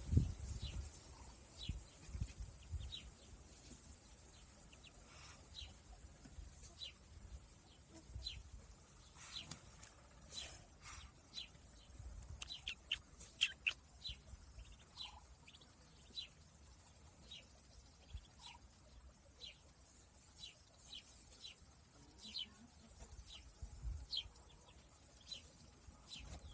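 Small birds chirping: many short, high, quickly falling chirps at an uneven pace, over a steady high hiss.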